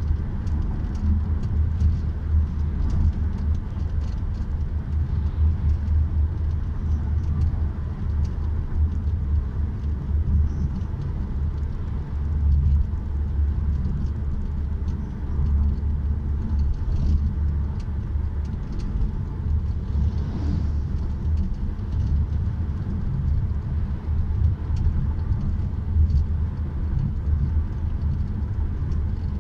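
Car driving at highway speed, heard from inside the cabin: steady, low road and tyre noise with engine hum.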